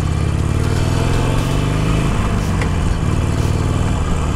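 Harley-Davidson Iron 883 Sportster's air-cooled V-twin pulling away under throttle from the rider's seat, its pitch climbing, breaking about two seconds in, then climbing again, with wind rushing across the microphone.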